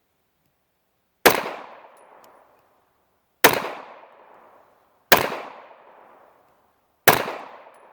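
Four single shots from a 9mm Hi-Power-pattern pistol, fired slowly about two seconds apart, each followed by about a second of echo as it dies away.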